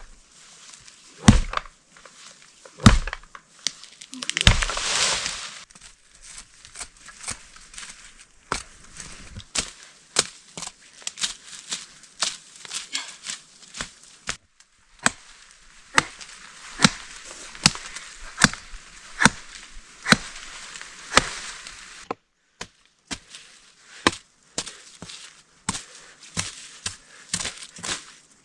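Repeated chopping of a blade into the wood of a small tree trunk, about one to two strokes a second, with a few heavier blows near the start. A short rush of rustling brush comes about four seconds in, and the chopping breaks off briefly about two-thirds of the way through.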